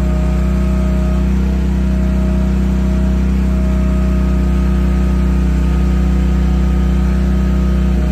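A compact mini excavator's engine running steadily at constant speed, with a thinner, higher whine that fades in and out over it.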